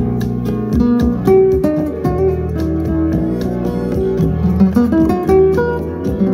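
Music played back through a pair of Yamaha NS-10MM two-way bookshelf speakers, with small 3.5-inch paper-cone woofers and dome tweeters, as a listening test of the speakers.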